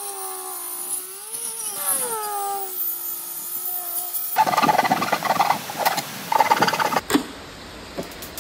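Angle grinder with a cut-off disc cutting an opening in a sheet-metal panel: its motor whine sags and recovers in pitch as the disc bites, then turns to a rougher, grittier grinding about four seconds in. Near the end the sound changes suddenly to a few sharp knocks.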